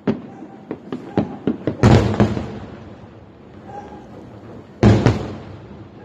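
Fireworks going off: a quick run of sharp cracks, then two heavy booms about three seconds apart, the first about two seconds in.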